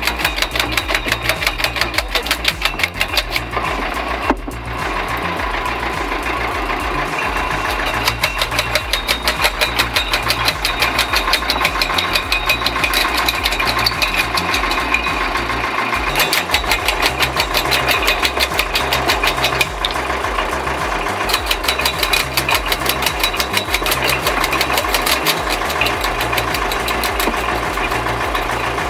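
Engine of heavy wood-processing machinery running under load, with a fast, even pulsing. Its tone shifts about four seconds in and again about sixteen seconds in.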